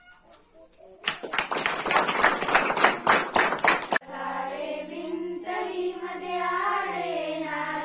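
Audience applause starting about a second in, dense hand clapping for about three seconds that cuts off abruptly. Then a group of schoolgirls singing together in unison.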